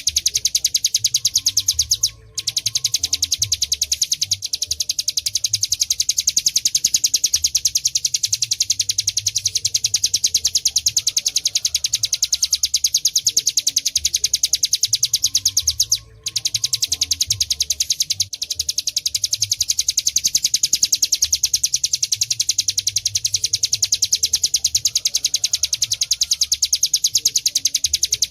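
Ciblek gunung (mountain prinia) singing the ngebren song: a long, very fast, high-pitched rattling trill, broken only by a short pause about two seconds in and another about sixteen seconds in.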